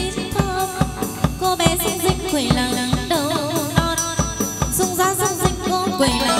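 Chầu văn, Vietnamese Mother Goddess ritual music: a singer with a wavering vibrato over plucked lute notes, with drum and clapper strikes keeping a steady beat several times a second.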